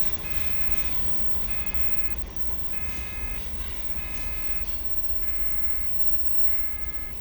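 Railway level-crossing warning signal beeping in a steady on-off pattern, six multi-tone beeps about 1.2 s apart, over the loud continuous rumble of a freight train passing the crossing.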